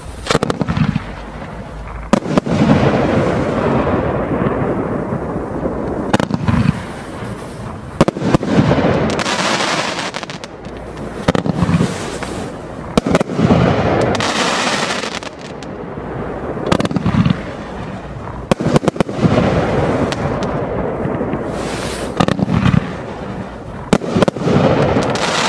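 Firework barrage cake firing without a break: a quick run of launch bangs with crackling bursts between them.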